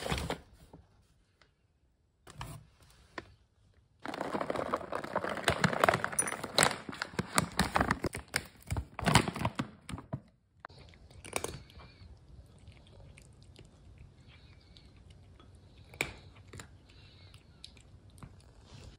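Cat food pouches and packaging crinkling and rustling as they are handled, with a long loud stretch of crackly rustling in the middle. Near the end a tabby cat crunches dry kibble from a ceramic bowl, quieter, with scattered small clicks.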